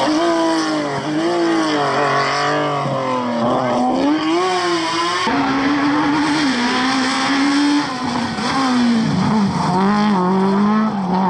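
Lancia Stratos rally car's engine revving hard through a bend, its pitch rising and dropping with the gear changes. About five seconds in it cuts to a Peugeot 106 rally car revving as it slides through a corner.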